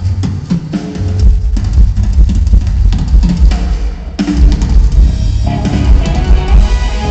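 Rock band's drum kit playing a loud beat with kick drum and snare over a low bass, as a live sound-check jam. About five seconds in, sustained guitar notes come in over the drums.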